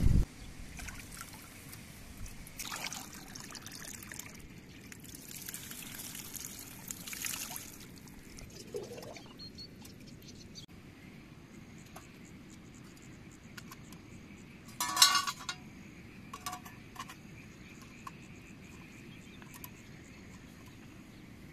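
A shallow stream trickling over stones while a small brass teapot is dipped, filled and rinsed in it, with water pouring and splashing in swells. One brief, louder burst about two-thirds of the way in, followed by a few light knocks.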